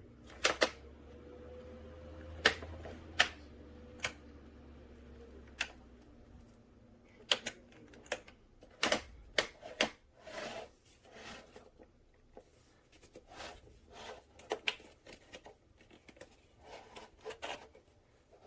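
Pelonis 20-inch box fan's motor humming low, then dying away over the first six seconds or so. Sharp clicks and knocks come throughout.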